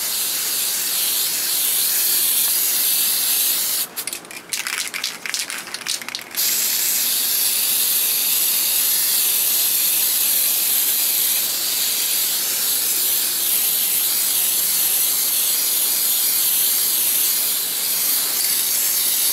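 Aerosol can of blue spray paint hissing steadily as paint is sprayed on. About four seconds in the spray breaks into short sputtering bursts for about two seconds, then runs steadily again.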